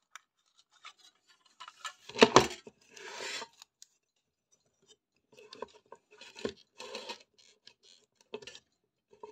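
Hands handling the metal case of an old power supply and working at its circuit board: a loud knock about two seconds in, then a rasping scrape, then a run of smaller clicks and knocks from the second half on.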